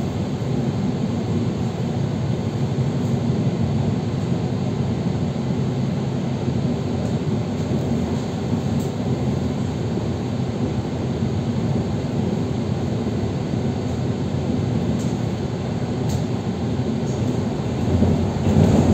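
Electric commuter train running at speed between stations, heard from inside the carriage: a steady rumble of wheels on the track that swells louder near the end.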